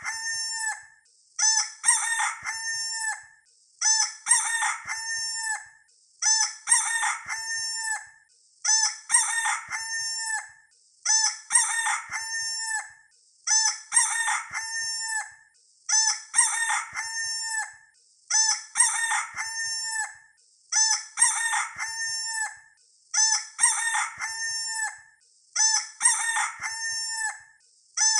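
Rooster crowing cock-a-doodle-doo over and over, the same crow repeated about every two seconds as an identical loop.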